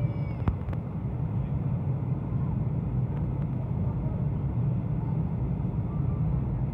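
Steady cabin noise inside a Boeing 737-800 flying with its flaps extended: a low, even rumble of its CFM56-7B engines and the airflow over the fuselage. There is a single sharp click about half a second in.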